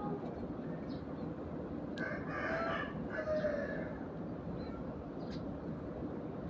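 A rooster crows once, about two seconds in, a call of a second and a half over steady background noise. A couple of short high sparrow chirps come before and after it.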